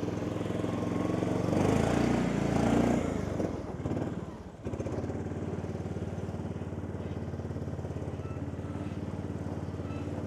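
John Deere utility cart's engine running, louder with a rush of noise in the first few seconds, then settling to a steady, even run after a brief dip about four and a half seconds in.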